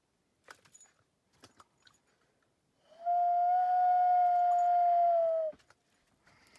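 Common loon giving its wail: one long, clear, steady note held for about two and a half seconds, starting about three seconds in and dipping slightly in pitch as it ends.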